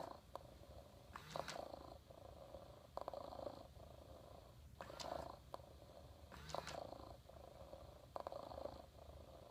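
Hasbro Joy For All robot cat's electronic purr, repeating in soft cycles about every second and a half, each starting with a short click. The cat is stuck in one of its long purring loops.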